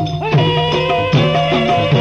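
Gujarati regadi folk music: steady held melody notes over a drum whose low strokes drop in pitch, about three every two seconds.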